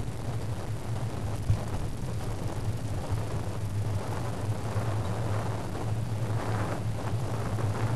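Steady rumble of wind and road noise picked up by a camera mounted on a moving bicycle, with one short knock about one and a half seconds in and gustier hiss near the end.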